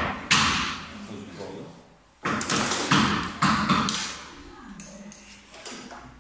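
A series of sharp taps and knocks, four or five of them, each dying away over about half a second.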